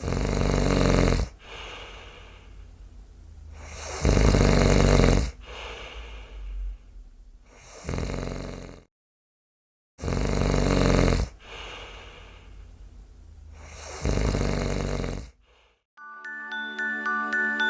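A person snoring loudly, one rasping snore about every four seconds with quieter breaths between; the snoring stops for about a second in the middle and starts again. Near the end a tinkling bell tune begins.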